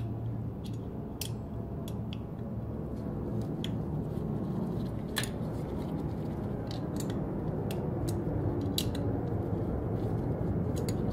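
Scattered sharp metallic clicks of a hand tool working the TSDZ2B motor's mounting bolts as they are tightened, over a steady low background rumble.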